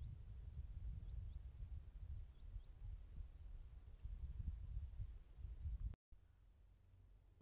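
Insect trilling: one steady high-pitched note over low rumbling, which cuts off abruptly about six seconds in, leaving only a faint hiss.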